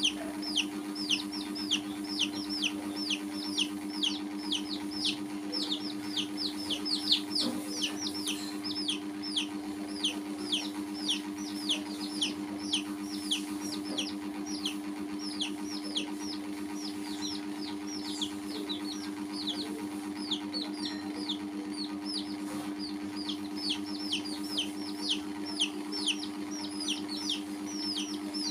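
Baby chicks peeping continuously: a rapid run of short, high peeps that slide downward in pitch, about two or three a second. A steady low hum runs underneath.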